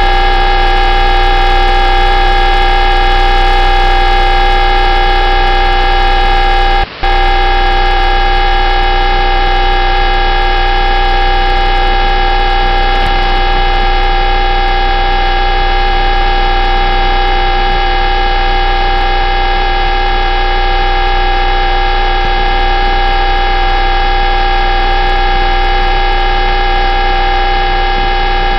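UVB-76 shortwave radio station, 'The Buzzer', transmitting a steady, unbroken hum made of many layered tones, received over shortwave radio. It drops out for a split second about seven seconds in, then carries on unchanged.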